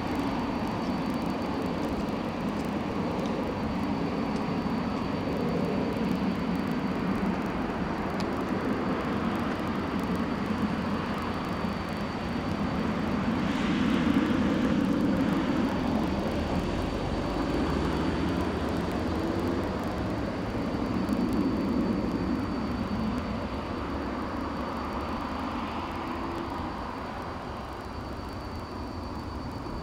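AKN diesel railcar running on the line, its engine drone and running noise swelling to a peak about halfway through, then fading as the train pulls away.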